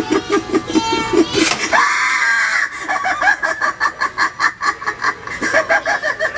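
Recorded sound effects from a Halloween animatronic prop: a fast, even pulsing chatter of about four to five beats a second, with a drawn-out shriek about a second and a half in.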